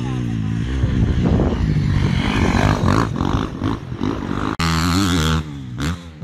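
Motocross bike engines running and revving, the pitch wavering up and down. About four and a half seconds in the sound breaks off abruptly and a steadier engine note follows.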